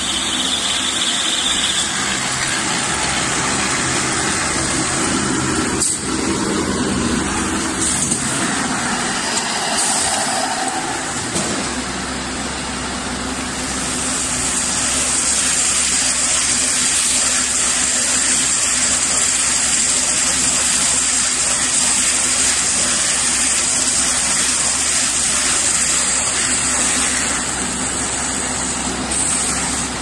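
A combined hay baler and bale wrapper running: continuous mechanical noise from its motor and moving parts as it bales hay and wraps the bale in film. A steady low hum comes in a little before halfway through.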